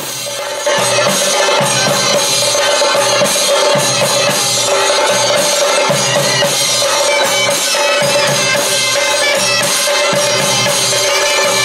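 A group of chande drums, the stick-beaten cylindrical drums of coastal Karnataka, played together in a fast, dense rhythm, with a wind instrument holding a steady high note over the drumming. The sound gets louder under a second in.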